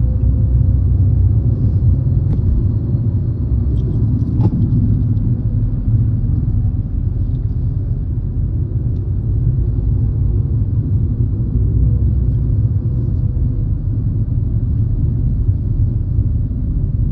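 Steady low rumble of a car's engine and road noise, heard from inside the cabin while driving, with a couple of faint clicks in the first few seconds.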